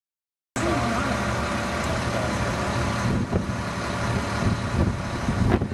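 A vehicle engine idling steadily, with faint voices in the background; the sound cuts in suddenly about half a second in.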